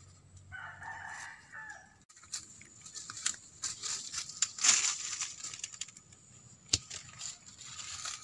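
A rooster crows once, about a second long, near the start. Then dry corn stalks, leaves and husks rustle and crackle irregularly as ears of corn are picked from the plants, with a sharp crack near the end.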